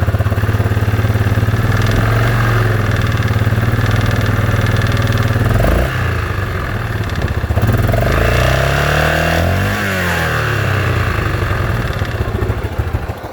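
Yamaha Grizzly 660's single-cylinder four-stroke engine running, freshly rebuilt with a new Hot Rods crankshaft and Wiseco piston. It runs steadily, its note shifts about halfway through, and near the end its speed dips and rises again.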